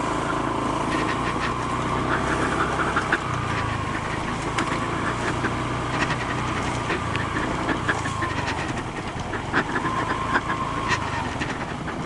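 Honda ADV150 scooter's single-cylinder engine running at low speed, with a whine that rises and falls as the throttle opens and closes. Scattered sharp knocks and rattles come from the scooter jolting over the rough, rutted track.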